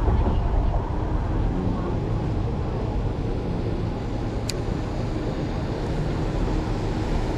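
Steady low outdoor rumble, with one sharp click about four and a half seconds in.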